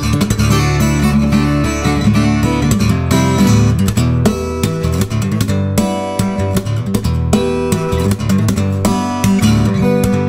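Background music led by acoustic guitar, picked and strummed at a steady pace.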